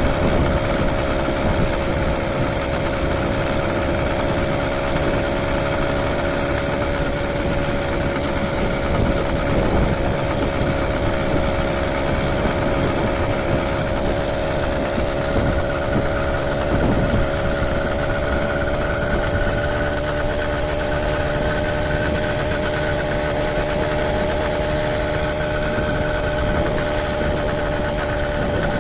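A motorized bicycle's small engine running steadily at cruising speed, holding an even pitch. Wind buffets the microphone throughout.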